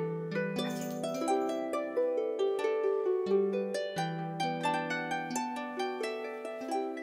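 Background music: a gentle melody of plucked notes in a quick, even rhythm over held low bass notes.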